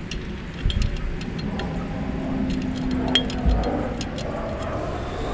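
Wind rumbling on the microphone, with scattered, irregular light metallic clicks and ticks.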